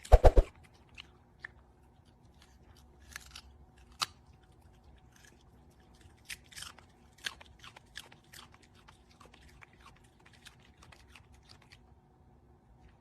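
Crunchy chewing: scattered soft crunches and clicks, a few a second, after a short loud burst at the very start.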